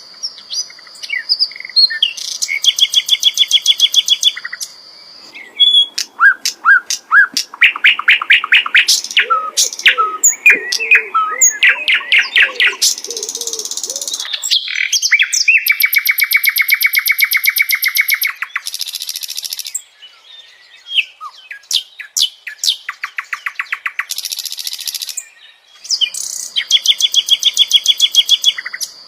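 Sikatan londo flycatcher singing a long, varied song. It runs together fast rattling trills, high thin whistles and quick chips, with a lower warble in the middle and a couple of short pauses.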